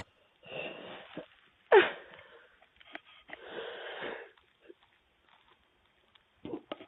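A person breathing heavily in breathy gusts of about a second each, with one short falling vocal sound about two seconds in, heard through a doorbell camera's microphone.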